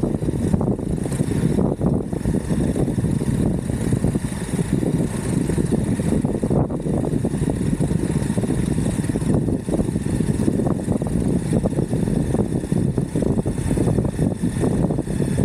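Electric skateboard rolling over a rough road: a continuous dense rumble and rattle from the wheels and board, steady in level.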